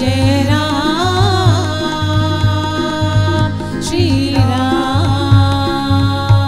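Hindu devotional music: steady held tones under a melodic line that wavers and slides in pitch, over a regular low drum beat.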